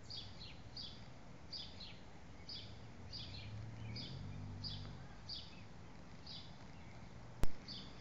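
A bird calling over and over outdoors, a short chirp falling in pitch about every half second, spacing out toward the end, over steady outdoor background noise. A faint low hum rises and fades midway, and a single sharp click comes near the end.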